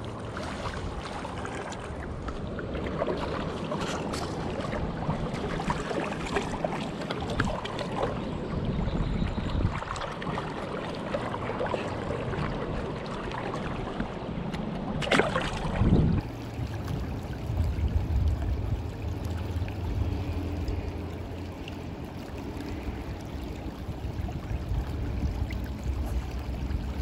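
Steady rush of river current flowing around a wading angler, with scattered light knocks and two louder knocks about fifteen seconds in.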